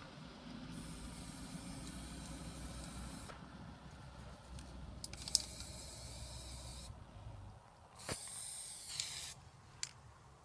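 Aerosol spray-paint can hissing in three bursts of a few seconds each: about a second in, about five seconds in, and about eight seconds in.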